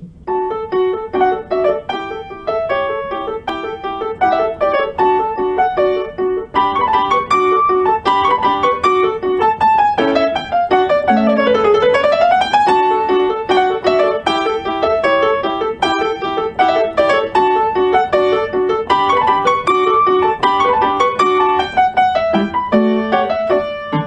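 Background piano music: a quick, steady run of notes, with a sweep down and back up the keyboard about halfway through.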